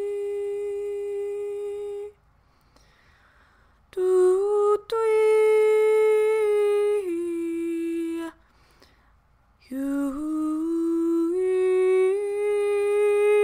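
A woman humming long held notes as a light-language activation, stopping twice for a pause of silence; each new phrase slides up into its note, and the middle phrase steps down to a lower note before it stops. One short click about five seconds in.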